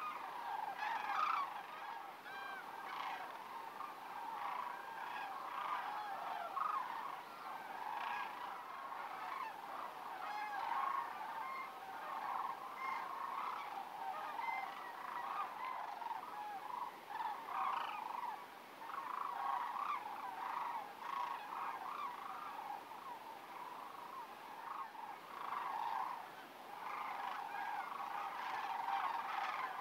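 A flock of sandhill cranes calling, a continuous chorus of many overlapping calls.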